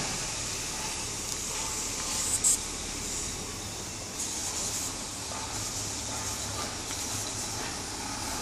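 Steady hiss of background noise with a faint low hum, and one short, louder hiss about two and a half seconds in.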